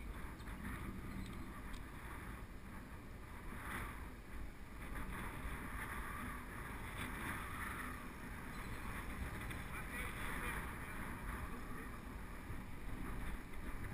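Steady rushing of wind over a GoPro's microphone while riding a mountain bike downhill, with the tyres rolling on asphalt.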